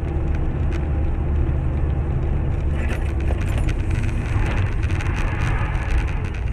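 A car driving, as a dashcam picks it up: a steady low rumble of engine and road noise, with a spatter of small clicks and rattles. It starts abruptly, and the rushing noise grows a little from about three seconds in.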